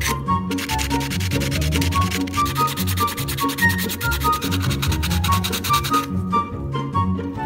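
Sandpaper rubbed over a small plastic 3D-pen figure in rapid back-and-forth strokes, smoothing its surface to a soft texture; the sanding pauses briefly about six seconds in. Background music with a melody and bass line plays underneath.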